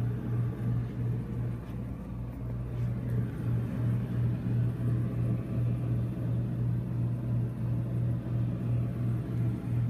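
Steady low hum with a slight regular waver, from the trailer's air conditioner running.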